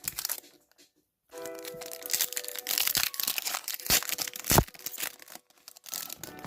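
Foil wrapper of a Pokémon TCG booster pack crinkling and tearing open, with two sharp snaps near the middle, over background music.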